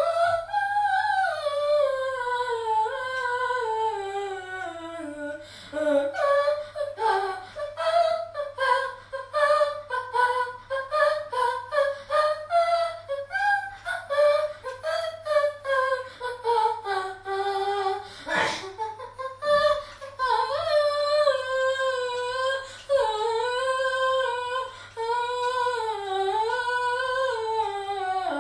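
A high voice hums a melody unaccompanied, the tune stepping up and down. There is a short break about two-thirds of the way through, with a brief noisy sound.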